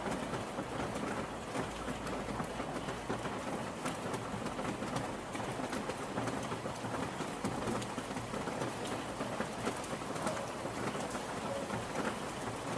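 Steady rain falling, a continuous hiss with many sharp individual drop hits scattered through it.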